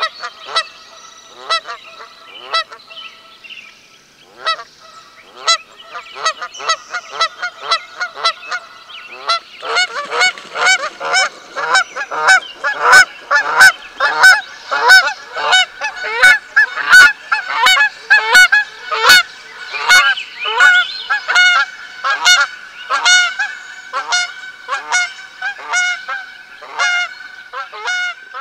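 A flock of geese honking, many short calls overlapping one another. The calls are sparser at first and grow denser and louder about ten seconds in.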